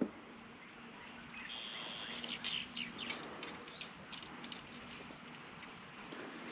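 Wild birds chirping in quick, short high calls, with a few brief whistled notes, over a faint steady low hum.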